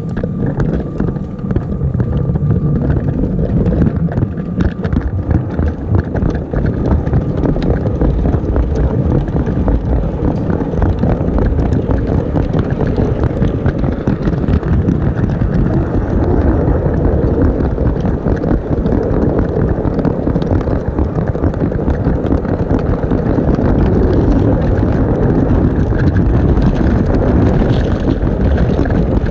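LEGO model train of an EMD E8 locomotive running on plastic LEGO track, heard close up: a steady rumble of the motor and wheels with a constant patter of clicks. It gets louder in the first second or two as the train picks up speed, then runs on evenly.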